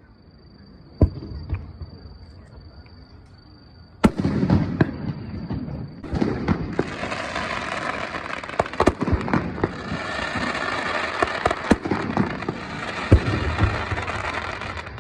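Aerial fireworks: a boom about a second in and a loud bang about four seconds in. From about six seconds, dense crackling of many small pops goes on, with repeated bangs.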